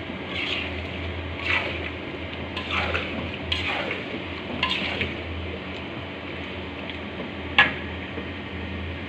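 A utensil scraping and knocking against a cooking pan as jengkol in soy sauce is stirred: about six irregular scrapes and clacks, the sharpest near the end, over a steady low hum.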